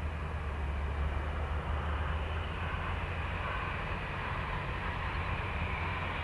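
Airbus A320 jet engines heard from the ground, a steady rumble and hiss.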